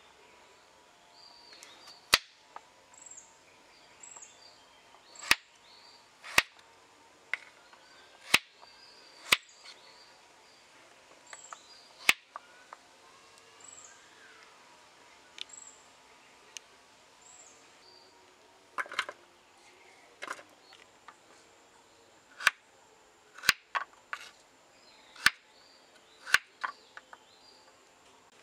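Kitchen knife slicing through peeled raw potatoes and knocking on a wooden chopping board, a sharp tap every second or two that comes faster near the end. Birds chirp in the background.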